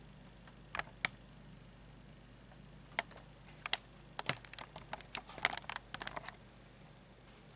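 Irregular sharp clicks and taps: two about a second in, then a quick uneven run of them from about three to six seconds in.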